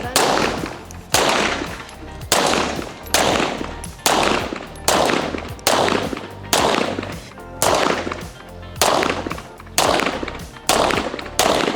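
A string of single gunshots fired at a steady pace of about one a second, roughly a dozen in all, each sharp crack followed by a short ringing tail.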